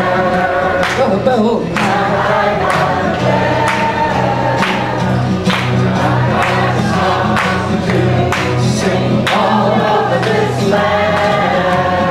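Twelve-string acoustic guitar strummed in a steady rhythm under many voices singing a song together like a choir.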